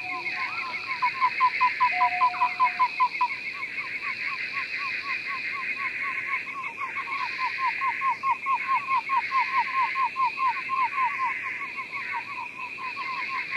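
Frogs calling in a chorus: a rapid series of short, repeated notes, about six a second, over a steady high-pitched background chorus.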